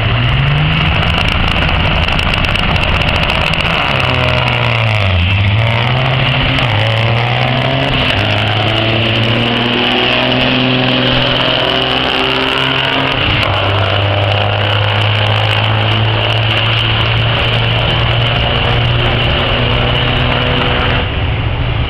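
Diesel semi-truck engines running hard in a drag race. The pitch climbs at the start, dips and climbs again about five seconds in, then holds steady and loud as a truck passes close by.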